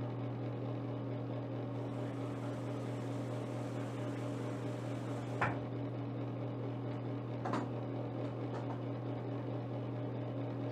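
Bathroom exhaust fan running with a steady low hum, with a couple of faint taps about halfway through.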